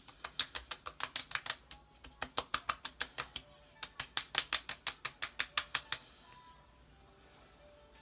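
Fingertips patting skincare product into wet facial skin: quick light slaps, about six a second, in runs with brief breaks, stopping about six seconds in.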